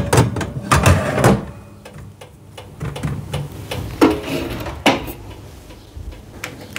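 Knocks and clatter from chapati dough being slapped onto the back of a hot metal oven tray and from the tray and oven being handled. There is a cluster of thuds in the first second or so, then two sharp knocks about four and five seconds in.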